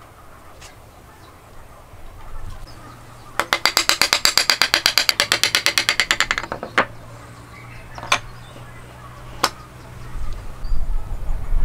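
A fast rattling run of clicks, about a dozen a second, for some three seconds. Then three single sharp knocks of a wooden mallet, about a second and a half apart, as a pinned wooden joint is knocked apart.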